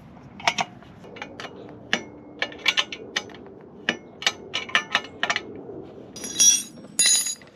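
Hand wrenches working the nuts on a motorcycle exhaust bracket: a run of sharp metallic clicks and clinks, several in quick succession. Near the end come two louder, ringing metal clangs.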